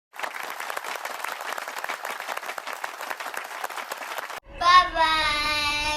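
Applause from many clapping hands for about four seconds, stopping abruptly, then a high voice holding a long, slightly wavering note.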